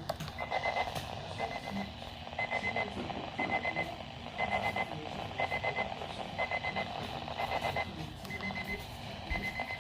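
Weather alert radio beeping: a short, high, electronic beep repeating steadily about once a second, ten times.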